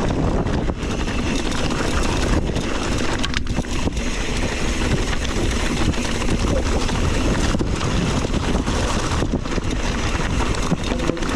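Mountain bike descending a rocky dirt trail: tyres crunching and rattling over rocks, with many short knocks from the bike, under steady wind rushing across the microphone.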